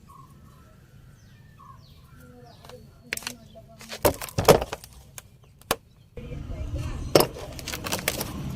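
A few sharp clicks and knocks, typical of hands working on car wiring, with a steady low rumble starting about six seconds in.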